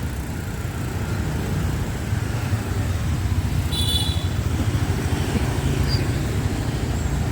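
Street traffic: a steady low rumble of passing engines, with a brief high-pitched beep about four seconds in.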